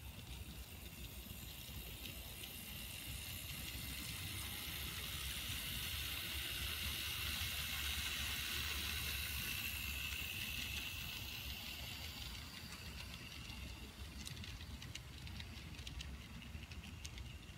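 N scale model train running past on its track: a light whir of the small locomotive motors and wheels that swells as the train passes and then fades, with light clicking near the end as the last cars go by.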